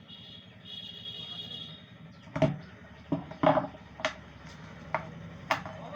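Sharp clicks and knocks of a small plastic Bluetooth speaker box being handled and opened, about seven of them starting some two seconds in, roughly every half second.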